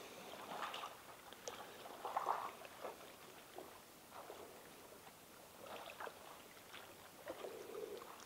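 Faint, irregular lapping and gurgling of small waves against the lakeshore.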